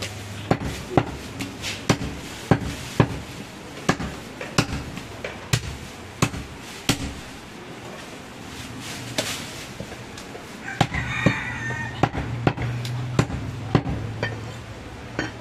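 Heavy butcher's cleaver chopping goat leg meat and bone on a wooden log chopping block: a run of sharp, uneven knocks, about one or two a second.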